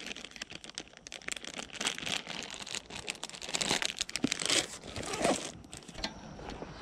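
Plastic bait bag of soft-plastic curly tail worms crinkling and crackling as it is handled and put away in a tackle backpack, easing off about six seconds in.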